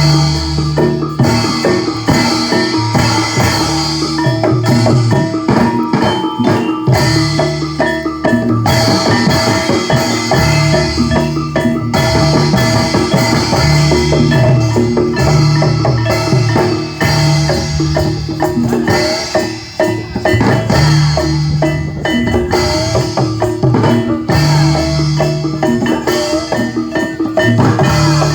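Javanese gamelan music for a jatilan dance: metal mallet instruments ring a repeating melody over hand-drum strokes.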